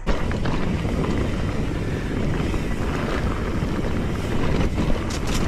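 Tour boat's motor running hard under way, a dense steady rumble mixed with wind buffeting the microphone, starting abruptly.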